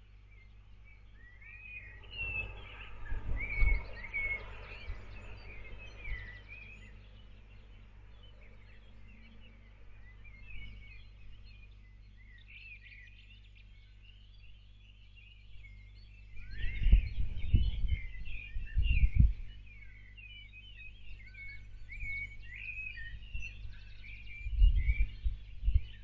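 Birds singing at dawn, many short chirps and whistles, over a low steady hum. Three spells of deep rumbling thuds: about two seconds in, again after about sixteen seconds, and near the end.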